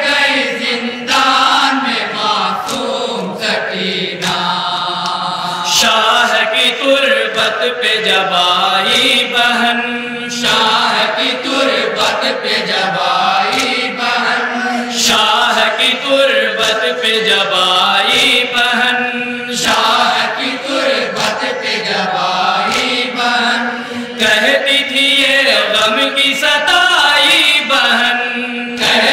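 An Urdu noha, a mourning lament, chanted by a group of men: a lead reciter sings the verses and the others chant along with him.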